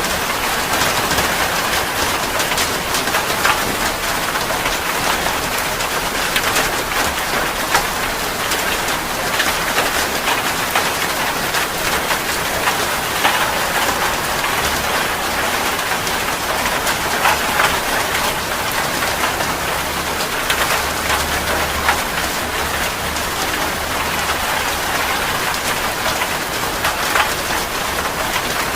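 Heavy rain falling steadily, with many separate drop impacts standing out from the even hiss.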